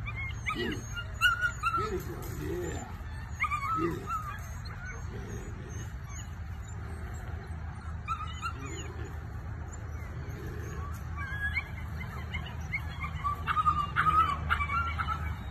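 Belgian Malinois puppy making short, high-pitched squealing growls while tugging on a bite rag, in clusters near the start and again near the end.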